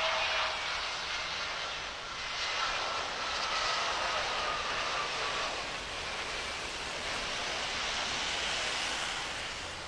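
Twin-engine jet airliner on the runway at takeoff, its engines giving a steady rushing noise with a faint whine in the middle.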